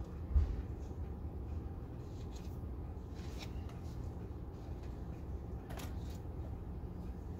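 Faint rustling and handling of soil and plastic as onion seedlings are set into cut-off plastic bottle pots, with a few light clicks. A single low thump comes about half a second in, over a steady low rumble.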